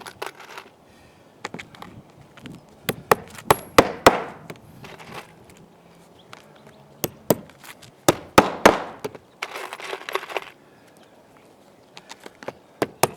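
Hammer driving 1-inch simplex nails through a flat-roof membrane to nail a cut buckle flat: sharp strikes in short runs with pauses between nails.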